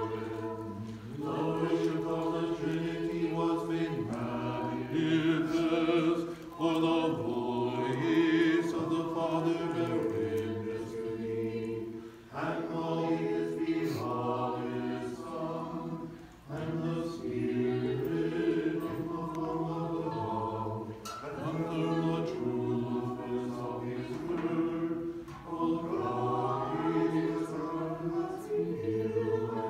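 Church choir singing unaccompanied Orthodox liturgical chant, in phrases with short breaks between them.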